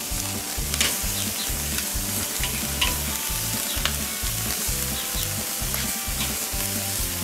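Pork belly sizzling steadily on the grate of a charcoal kettle grill, fat dripping onto the hot coals, with a few short sharp clicks and a low rumble underneath.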